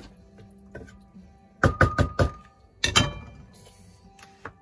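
Wooden spoon knocked four quick times against the rim of a metal cooking pot, then two sharper metal clanks about a second later that ring briefly.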